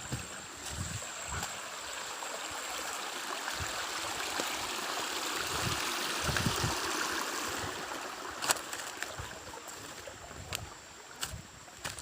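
Waterfall water rushing steadily. It swells to its loudest about six seconds in and then fades, with a sharp click a little after eight seconds.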